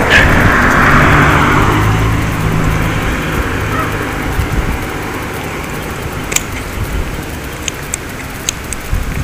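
A motor vehicle passing by: road and engine noise swells to a peak about a second in, then fades away over the next several seconds. A few light, sharp clicks come near the end.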